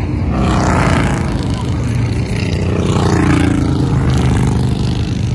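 Touring motorcycles passing by one after another on the road, their engines running with a low hum, each one's pitch falling as it goes past.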